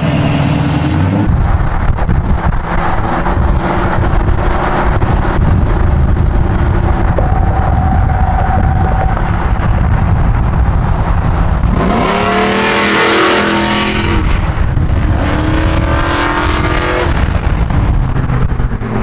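Vehicle engine and exhaust running loud under load, with two hard pulls near the end where the pitch rises steeply, the first with a strong rush of noise.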